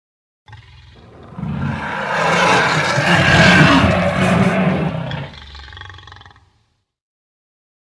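Daspletosaurus roar sound effect: a low rumbling growl that swells into one long, loud roar, then fades into a trailing rumble and stops.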